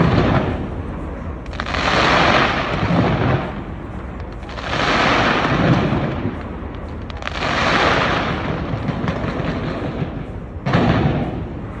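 Fireworks going off: sharp bursts followed by waves of crackling that swell and fade about every three seconds.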